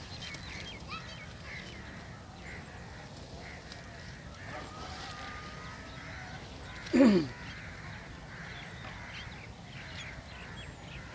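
Small birds chirping on and off over a low steady outdoor hum, with one loud, short call that falls in pitch about seven seconds in.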